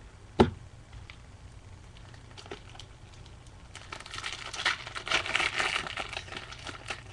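A single thump about half a second in, then a couple of seconds of crinkling and tearing as a trading-card pack wrapper is opened.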